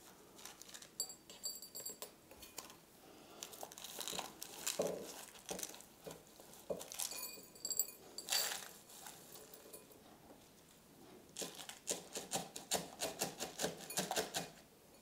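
A plant cutting being eased out of its cup of granular Fluval Stratum substrate: faint, intermittent crinkling of the cup and rustling, clicking patter of loose granules, with a quick run of clicks near the end.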